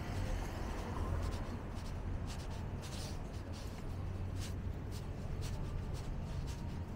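Low, steady city rumble with scratchy, irregular shuffling and rubbing noises close to the microphone, typical of a walker's steps and clothing on a handheld camera.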